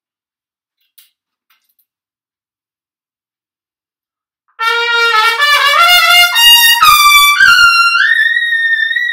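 Trumpet, after a few seconds of quiet, plays a loud climbing run of separately attacked notes up to a held double high C. The notes are tongued with a "cough" articulation.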